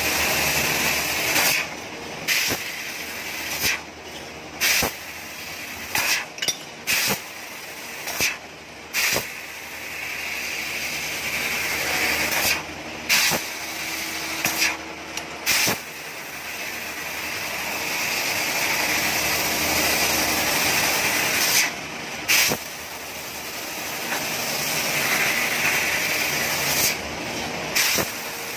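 CNC fiber laser cutting machine at work on metal, its assist gas hissing steadily, broken by many short, louder bursts at uneven spacing.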